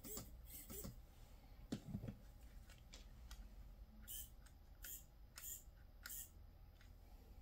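Near silence with a few faint, scattered clicks and light rattles, like small plastic RC parts being handled.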